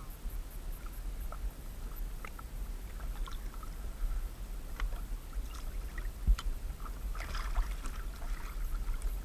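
Small paddled boat moving on the water: scattered light splashes and drips, with a patch of more splashing about two-thirds through, over a steady low wind rumble on the microphone.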